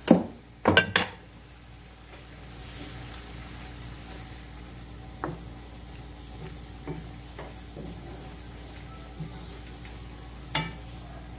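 Wooden spatula stirring bamboo shoots simmering in a frying pan, knocking softly against the pan every second or so over a low steady sizzle. A few sharp clinks of kitchenware in the first second.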